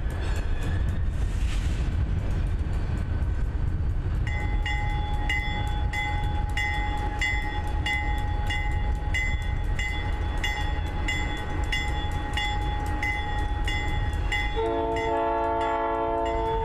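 Diesel locomotive rumbling as it moves through the yard, with a brief hiss about a second in. Its bell starts ringing steadily about four seconds in, and a horn chord of about two seconds sounds near the end.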